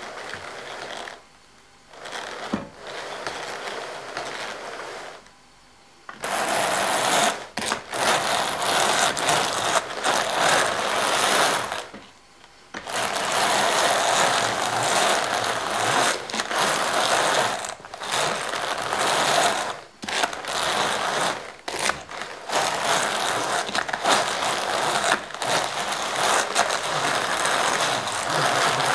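Hand-cranked Walther 'Rudy' drum carder turning as it cards angora fibre: a whirring, rattling run of the drums and their carding cloth. It starts and stops a few times at first, then runs louder and mostly without pause from about six seconds in, with one short stop near twelve seconds. In the later part a wooden-backed card is held against the large drum.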